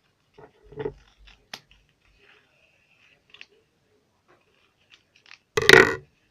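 Scissors snipping paper in a few short cuts, then a short, loud voice-like sound near the end.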